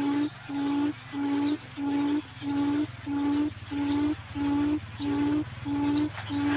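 Forest quail (puyuh hutan) lure call: a low hooting note repeated at an even pace, about one and a half to two notes a second, each short and all at the same pitch. Faint short high chirps sound now and then behind it.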